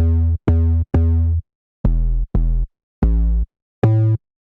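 808 bass sounds playing a line of seven short bass notes at changing pitches, each one cut off abruptly; the last note sits higher than the rest.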